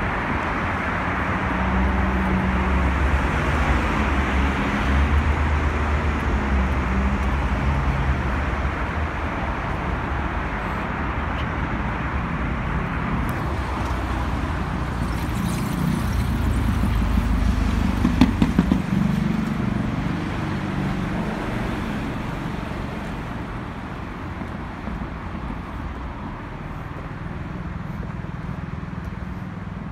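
Traffic on a busy multi-lane city avenue: a steady roar of passing cars with low engine hum. It swells to its loudest a little past halfway, then eases off toward the end.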